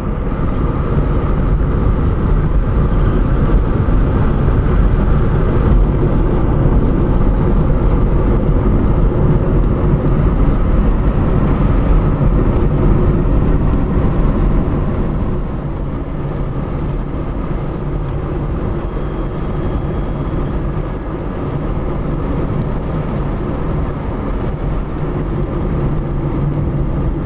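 Car driving along a road, heard from inside the cabin: a steady engine and tyre rumble that gets a little quieter about halfway through.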